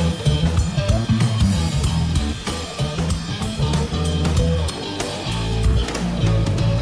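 Background music: a band track with a drum kit and a stepping bass line keeping a steady beat.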